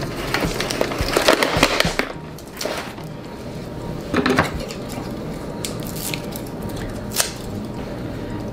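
Lettuce leaves and a plastic produce container rustling and crinkling as greens are pulled out by hand, followed by a few sharp snips of kitchen scissors cutting the greens.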